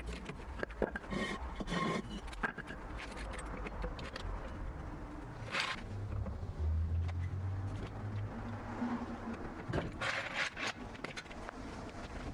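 Workshop handling noise: metal clinks, knocks and scrapes of tools and parts on the car, with a brief low hum about halfway through.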